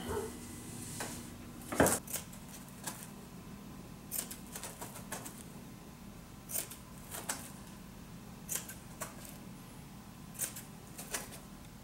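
Scissors snipping through carpet fabric in a series of short, irregular cuts, slitting tabs around the edge of a panel opening.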